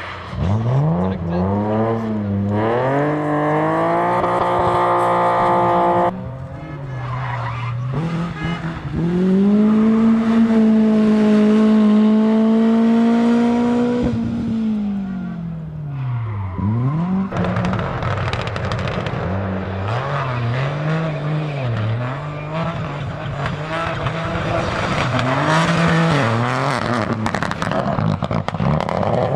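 Rally cars at full throttle: engine revs climbing hard through the gears, then a car holding high revs and dropping sharply in pitch as it passes, then revs rising and falling in quick gearshifts over tyre noise.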